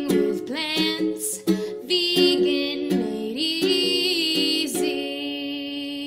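Intro jingle music: plucked strings with a sung melody whose notes glide and change every half second or so, settling on a long held note about five seconds in.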